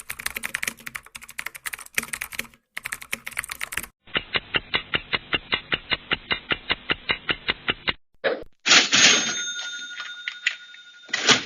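A string of sound effects: fast computer-keyboard typing for about four seconds, then an even run of clicks about five or six a second, then a loud bell-like ring with a few held tones that fades over a couple of seconds.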